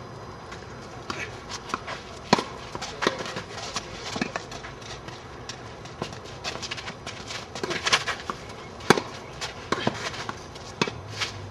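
Tennis rally on a clay court: sharp pops of rackets striking the ball and the ball bouncing, irregular and roughly a second apart, with players' footsteps on the clay in between.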